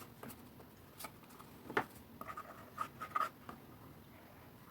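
Faint handling of glued cardstock pieces: scattered light taps and papery rubbing, with a sharper tap a little under two seconds in and a short cluster of small scrapes after it.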